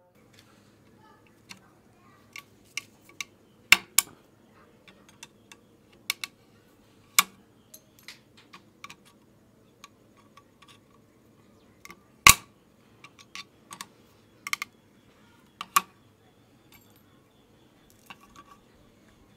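Irregular sharp metallic clicks and knocks from a handmade rebar tool with a ring jaw being handled and worked against a wooden board, strongest about four seconds in and again near the middle, over a faint steady low hum.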